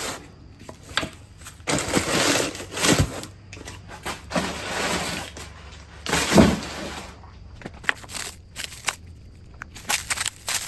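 Packaging being handled, crinkling and rustling in several spells of about a second each, with sharp clicks from small plastic parts being picked up and set down.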